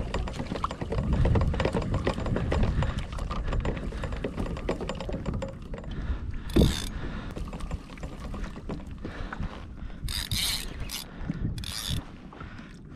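Spinning reel cranked against a hooked fish: a dense run of gear and ratchet clicking for about six seconds, then sparser clicks, with a few short hissing bursts later on.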